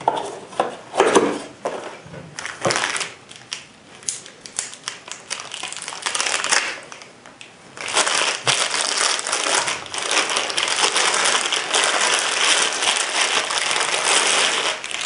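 Clear plastic bag crinkling loudly and steadily as a rifle scope is worked out of it by hand, after a few knocks and rustles in the first seconds as the scope is lifted out of its cardboard box.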